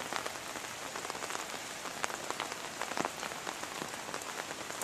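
Steady rain falling, with many separate drop hits standing out from the hiss.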